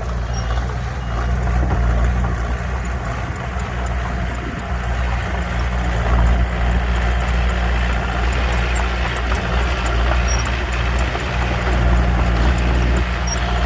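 Komatsu D21P mini bulldozer's diesel engine running steadily, a low even drone.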